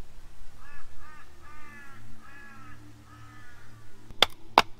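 A crow cawing, about five calls in a row, followed near the end by two sharp cracks.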